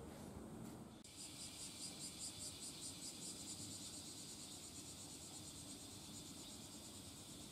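Insects chirring in a high, rapidly pulsing trill of about five pulses a second, starting suddenly about a second in and then running on steadily.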